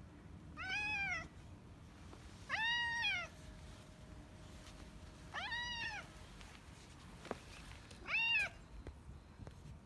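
Domestic cat meowing four times: short calls that rise and then fall in pitch, about two to three seconds apart.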